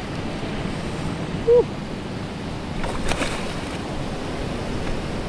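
Sea surf washing over coral rock into a shallow rock pool, a steady rushing wash. A short voiced sound, the loudest moment, comes about a second and a half in, and a brief crackle around three seconds in.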